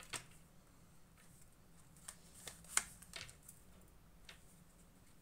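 Tarot cards being handled and laid out on a table: a few faint, short card snaps and slaps, the clearest a little under three seconds in.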